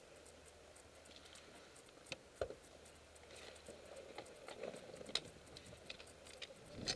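Faint rustling with scattered light clicks and taps, a few of them sharper.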